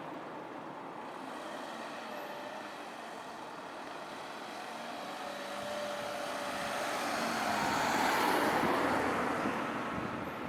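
A road vehicle passing over the level crossing, its noise swelling to a peak about eight seconds in and then fading away.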